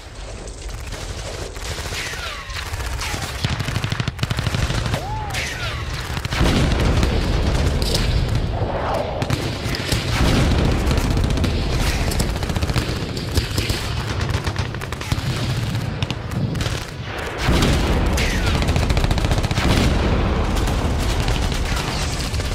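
Battle sound effects: dense, rapid machine-gun fire mixed with heavy booms, swelling over the first few seconds and staying loud, with a few thin falling whistles above it.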